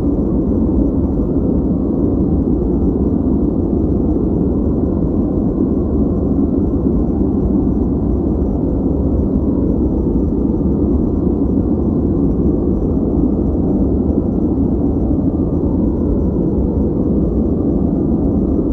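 A steady, unbroken noise track of the kind played for focus: a muffled, low rushing hiss that carries little in the highs and does not change.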